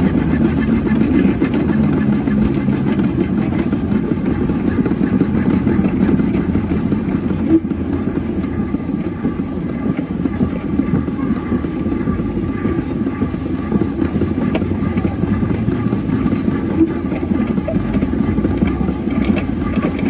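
4-inch scale miniature steam traction engine on the move, heard up close from the driver's seat: a steady mechanical rumble of its engine and running gear, with one sharp knock a little past a third of the way through.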